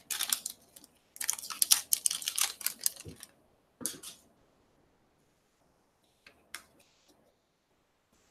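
Foil wrapper of a trading card pack crinkling and tearing as it is opened, a quick run of crackles for about three seconds. One more short rustle follows near four seconds, then two faint clicks as the cards are handled.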